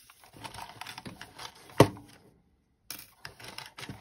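Paper rustling and small clicks as a paper name slip is handled and fastened to a card with a paper clip, with one sharp click a little under two seconds in.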